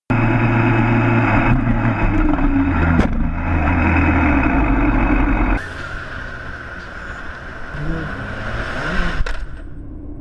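Sportbike engine running hard from the rider's seat, with brief breaks in the engine note about one and a half and three seconds in. After a cut about halfway, a quieter motorcycle engine is heard with wind on the microphone while filtering through traffic, its pitch rising in two short blips near the end.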